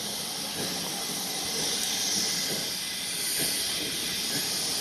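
Steady hiss of escaping steam from a steam locomotive.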